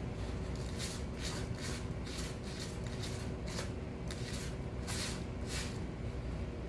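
Kitten raking and scratching granular litter in a foil pan while covering its waste: a run of short, irregular rustling scrapes, about two a second.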